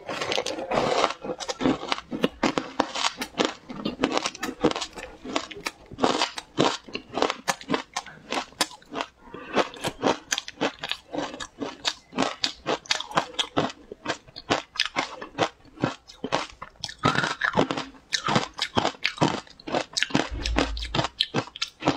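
Crunching and chewing of frozen shaved ice dusted with matcha powder, heard up close as a continuous run of sharp, irregular crunches, several a second.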